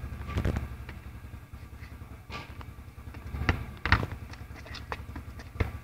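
A football being juggled with the feet on hard ground: a handful of separate, irregular thuds of shoe on ball and footsteps, the loudest about four seconds in.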